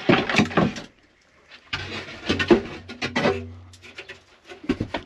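Plywood panel scraping and rubbing against the wooden frame of a battery box as it is pulled free and lifted out, in two long scrapes, with a few short knocks near the end.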